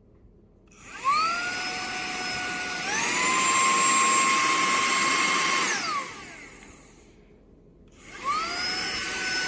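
Cordless handheld vacuum cleaner's motor spinning up with a rising whine, then stepping up to a higher pitch as it is switched to the high setting. It winds down and stops about six seconds in, then spins up again after a short pause near the end.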